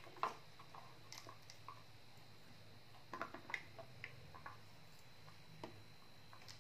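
Faint, scattered light clicks and taps of a plastic toy knife and plastic toy fruit pieces being handled on a tabletop, over a faint steady hum.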